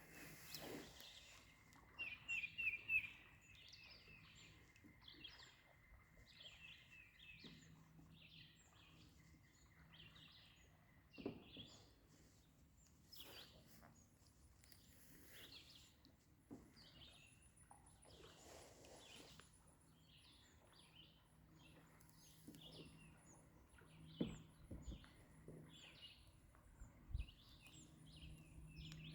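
Faint songbird calls and chirps from several birds, with a quick run of notes about two seconds in and a very high, thin repeated trill through the second half. A few soft knocks stand out here and there.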